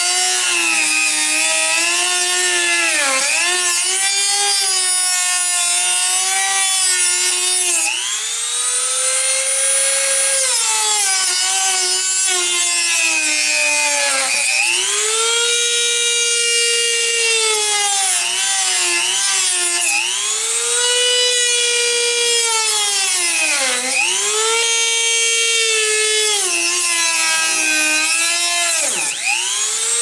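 Small handheld rotary tool with a cut-off disc cutting into the plastic housing of a refrigerator water filter along its seam. It runs with a steady whine that sags in pitch and recovers again and again, each sag lasting a second or two.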